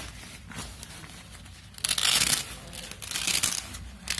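Nylon and mesh riding-jacket fabric rustling and crinkling as hands open the back-armour pocket, with a loud rasping burst about two seconds in and a shorter one just after three seconds.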